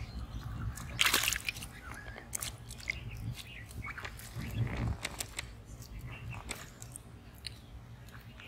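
Live fish splashing and knocking in shallow water in a plastic tub: scattered short clicks and small splashes, a louder sharp splash about a second in, over a low rumble.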